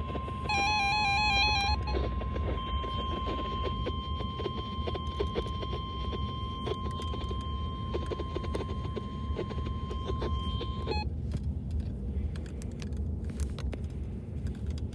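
NOAA Weather Radio warning alarm tone: a single steady high tone near 1 kHz that holds for about eleven seconds and then cuts off. Near the start a brief warbling data burst plays over it. A low rumble and static hiss from the radio run beneath throughout.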